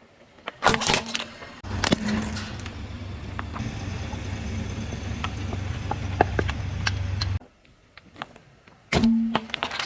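A car's tyres rolling over and crushing objects: sharp cracks and crunches over the car's steady low rumble. The rumble cuts off suddenly, and after a short quiet gap there is another burst of cracks.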